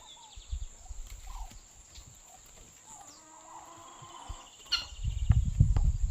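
Lined seedeater (bigodinho) calling: short high chirps and a fast rattling trill. A sharp click comes near the end, followed by a loud low rumble.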